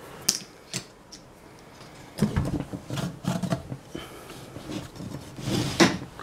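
Clunks, knocks and scrapes as a Saab 9000 AC condenser fan and motor are set into their steel mounting ring and the blade is turned by hand. The loudest scrape comes near the end, and it comes from the blade tips rubbing on the ring at a point where the ring looks bent.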